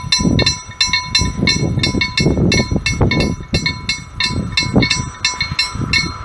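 Level-crossing warning bell ringing in rapid, evenly spaced strikes, about three to four a second, with a low irregular rumble underneath.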